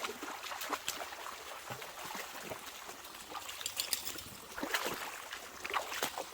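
Shallow creek water trickling and running over rocks, with scattered short splashes through it.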